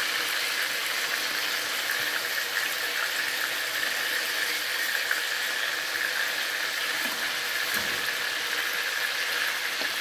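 Chicken pieces sizzling steadily as they brown in hot oil in an aluminium frying pan, while a fork turns them over.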